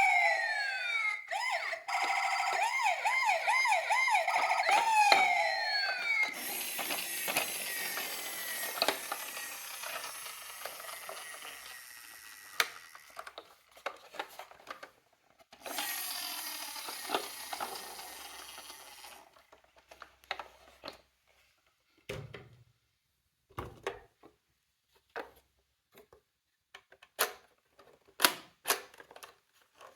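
Electronic sirens of toy emergency vehicles (ambulance, police car, fire truck) wailing for the first few seconds, with overlapping rising and falling sweeps and a fast warble. A rushing rolling noise follows as the toy cars run down a slope, fading away, then comes again briefly. Scattered plastic clicks and knocks from the toys being handled fill the rest.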